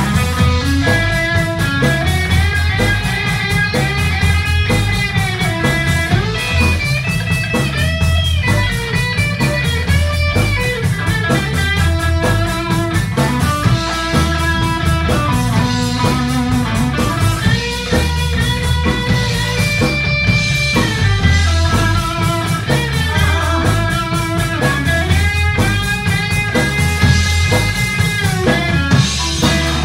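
Live rock band playing: electric guitar over bass guitar and a drum kit, with a steady beat.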